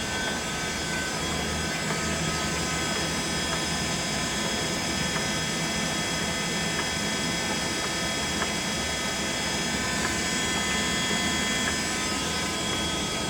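LeBlond 4025 NK heavy-duty gap lathe running, its gearing giving a steady whine and hum as the carriage power-feeds toward the chuck.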